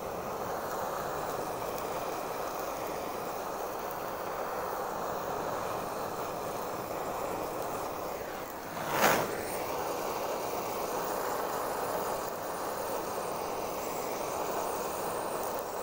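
Handheld gas torch flame hissing steadily as it burns against a large sucker fish's armoured scales, with one sharp pop about nine seconds in.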